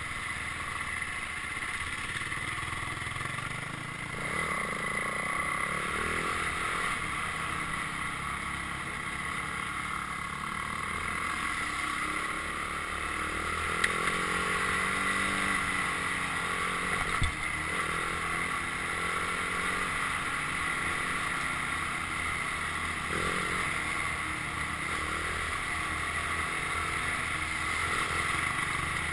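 Dirt bike engine running while being ridden, its pitch rising and falling with the throttle, with wind noise on the microphone. Two brief sharp knocks come about halfway through.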